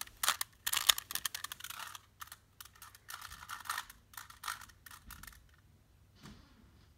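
Plastic 3x3 Rubik's Cube being turned by hand: quick runs of clicking and rattling as the layers twist, thinning out after about five seconds.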